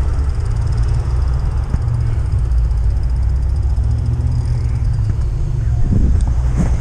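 Steady low rumble of wind buffeting the microphone while riding along, with a faint high hiss over it.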